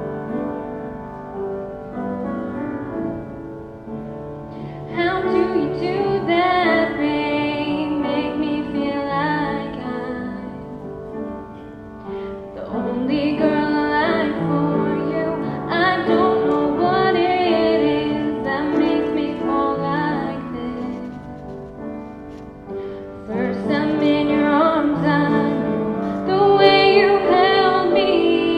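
A woman singing a slow solo song with piano accompaniment. The piano plays alone for the first few seconds before the voice comes in, and the singing pauses briefly twice between phrases while the piano carries on.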